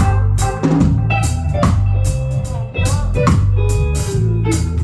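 Live band playing an instrumental groove: drum kit keeping a steady beat under bass and electric guitar.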